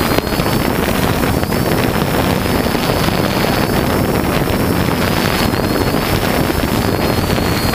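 Multirotor drone's motors and propellers buzzing steadily, with a high whine that wavers slightly in pitch, mixed with wind rushing over the onboard camera's microphone.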